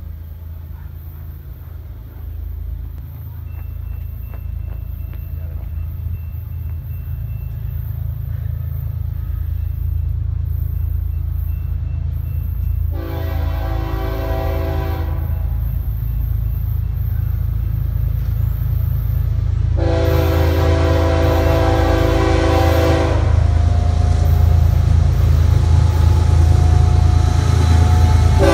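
BNSF freight train with diesel locomotives approaching, a low rumble growing steadily louder as it nears. The locomotive's air horn sounds twice, a shorter blast about halfway through and a longer one a few seconds later, each a chord of several notes.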